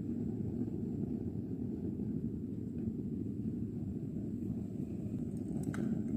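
Steady low rumbling background noise with no distinct events, and a faint click near the end.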